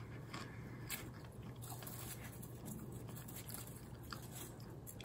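A person chewing a mouthful of popcorn: soft, irregular crunching, with a few sharper crunches in the first two seconds.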